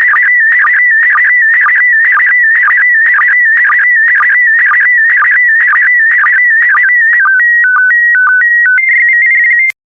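PD120 slow-scan TV (SSTV) image signal: a warbling electronic tone that carries the picture line by line, with a short sync beep about twice a second. Near the end of the image data it switches to a few stepped tones, then a steady tone, and cuts off suddenly with a click as the transmission ends.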